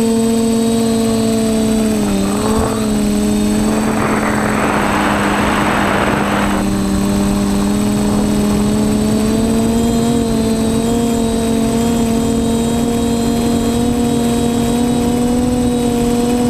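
TBS Discovery quadcopter's electric motors and propellers whining steadily in flight, the pitch dipping briefly about two seconds in. A rushing noise joins in from about four seconds to nearly seven seconds in.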